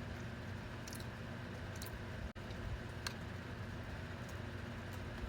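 A person chewing a donut with the mouth closed: a few faint wet mouth clicks over a steady room hum.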